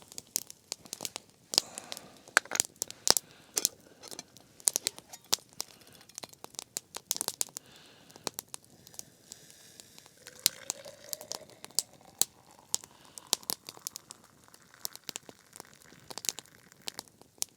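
Campfire wood crackling, with irregular sharp pops and snaps throughout.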